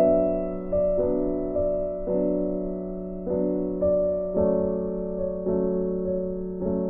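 Background music: soft piano or electric-piano notes struck about once a second, each fading slowly over a held low note.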